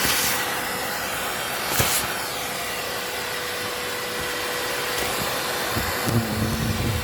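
Vacuum cleaner running with a steady whine. There is a brief louder rush about two seconds in, and some low knocking near the end.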